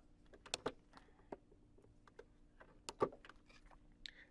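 Faint, scattered taps and clicks of a stylus pen on a tablet screen as it writes and erases handwritten notes. The sharpest clicks come about half a second in and about three seconds in, and a short scratch of the pen comes near the end.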